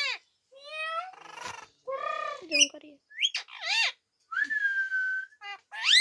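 Rose-ringed parakeet vocalising: a run of short, high, speech-like mimicked calls gliding up and down in pitch, a steady whistle held for about a second some four seconds in, and a sharp rising squawk near the end.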